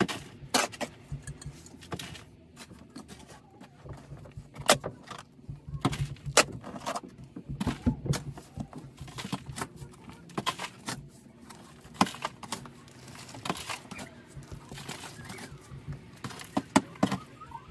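A hand digging tool chopping and scraping into packed, stony soil: irregular sharp clinks and scrapes, about one a second.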